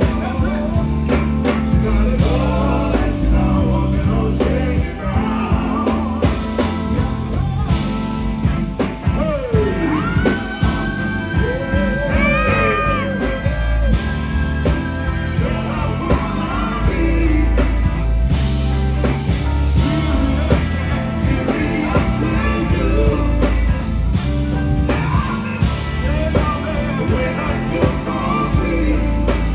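Live soul band music with group singing: male vocals over electric guitar, bass, drums and keyboards, with a steady beat. A long held, wavering note rises out of the mix near the middle.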